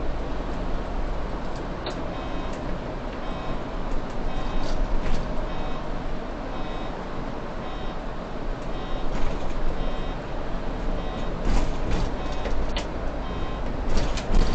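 City bus driving, heard from the driver's cab: steady engine and road noise, with a short electronic beep repeating about once a second and a few rattles near the end.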